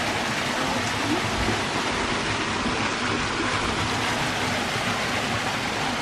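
A small waterfall: thin streams of water fall from a rock face and splash into a pool, making a steady, even hiss.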